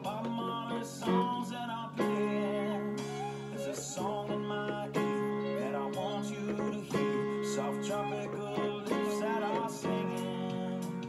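Yamaha portable digital keyboard being played: sustained chords that change about once a second, under a wavering melody line.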